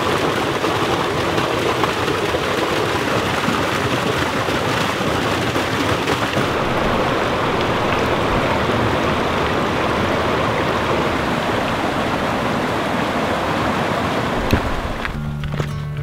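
Mountain creek rushing and splashing over rocks in a small cascade, a steady loud wash of water noise that softens slightly in its highest hiss a little before halfway. Music with low held tones comes in near the end.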